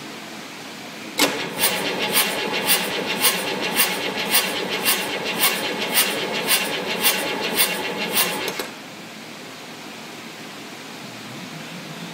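Detroit Diesel 8V-53 two-stroke V8 turning over on the starter for about seven seconds, then cutting off abruptly. It gives a rhythmic airy chuff from the exhaust about twice a second, which the owner puts down to compression escaping past a broken valve.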